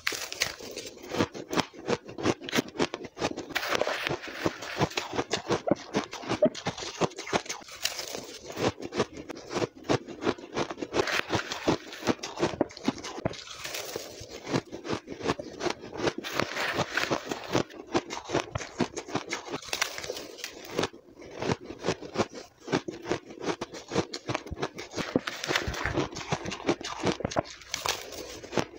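Dense, rapid crunching of blender-crushed ice being chewed, close-miked.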